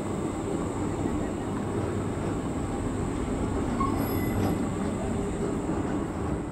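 Škoda 15T low-floor tram passing close by, its wheels rumbling on the rails, with a steady high-pitched whine throughout.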